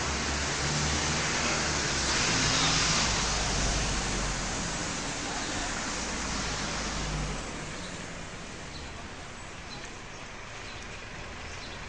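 Street traffic: a motor vehicle's engine and tyres passing, loudest about two to four seconds in and fading out by about seven seconds, leaving quieter street background.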